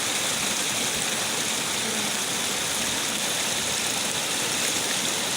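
Steady rushing of flowing water, an even hiss without breaks.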